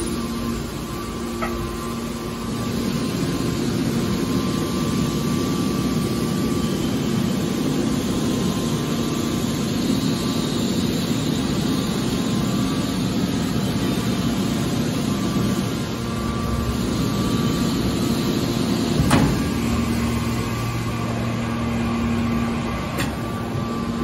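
Steady hum of a scrap metal baler's hydraulic power unit running, a pump-and-motor drone with a held tone, and a single sharp knock about nineteen seconds in.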